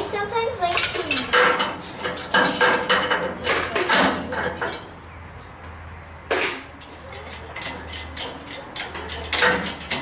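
Steel hoist chain clinking and rattling against metal as it is handled and hooked onto a pickup's rear bumper: a quick run of sharp clinks over the first four seconds or so, a single clink about six seconds in, and another few near the end.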